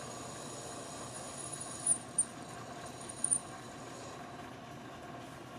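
Metal lathe running under a cut, a steady machine noise with a faint high whine, and three brief high-pitched squeals around the middle. The whine stops about four seconds in.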